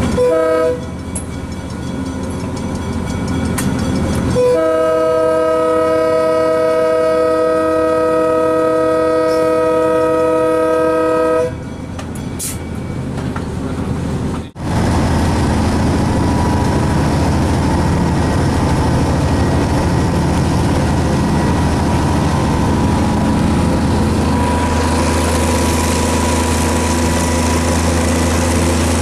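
GE 70-tonner diesel locomotive's air horn: a short blast, then one long blast of about seven seconds as the train nears a road crossing. After a break, the locomotive's diesel engine and wheels on the rails keep running steadily.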